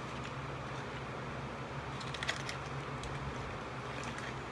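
Eating sounds: a fork and spoon working food on aluminium foil, with chewing, giving a cluster of small sharp clicks about two seconds in and a few fainter ones near the end. Under it runs a steady low hum.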